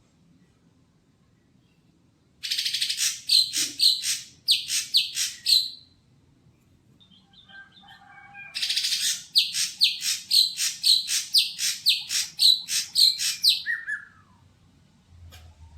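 Cucak hijau (greater green leafbird) calling in two bouts of loud, harsh repeated notes, about two to three a second. The first bout starts about two and a half seconds in, and a second, longer bout runs from about eight and a half seconds to near the end.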